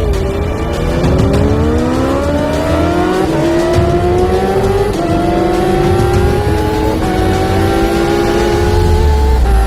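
Supercharged Kawasaki H2R inline-four engine at full throttle, its pitch climbing steadily and dropping slightly at each of four upshifts, roughly two seconds apart.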